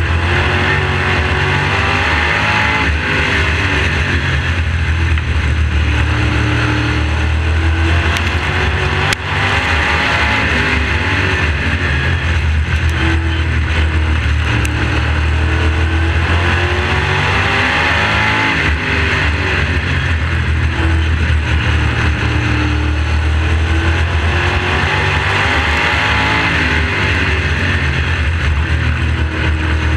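Onboard sound of a modified oval race car's engine running hard at race pace, with heavy wind and chassis noise. The engine note falls and rises again every several seconds as the driver lifts for the turns and gets back on the throttle. There is a brief click about nine seconds in.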